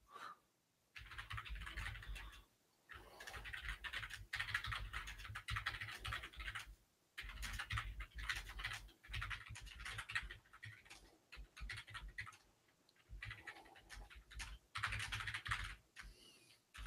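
Faint computer keyboard typing: spells of rapid key clicks with short pauses between, as a message is typed out.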